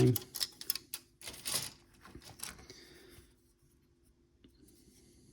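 Plastic model-kit sprues and their wrapping being handled: a run of rustles, crinkles and light clicks lasting about three seconds.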